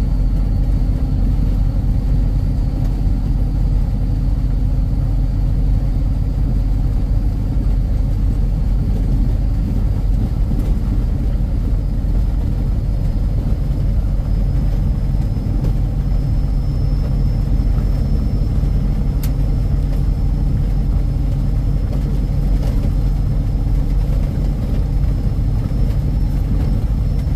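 Steady rumble of a vehicle's engine and tyres, heard from inside the cab while driving on a snow-covered road. A faint high whine runs along steadily underneath.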